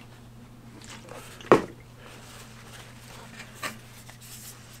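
Alcohol-dampened cloth rag being handled and rubbed against a model plane's control surface, with soft rustling. One sharp knock about a second and a half in is the loudest sound, and a lighter tap comes about two seconds later. A steady low hum runs underneath.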